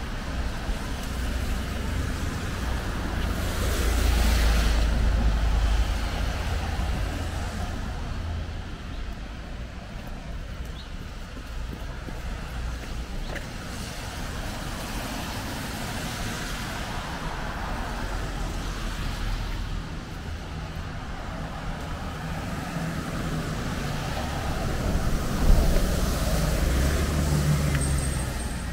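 Road traffic on a wet street: cars passing with their tyres hissing through the water, over a steady low rumble. Two pass-bys stand out as louder, about four seconds in and again near the end.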